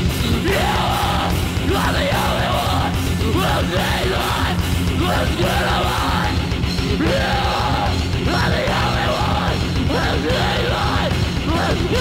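Live death-metal/hardcore band playing: heavily distorted electric guitars and fast drumming under a screamed, yelled vocal.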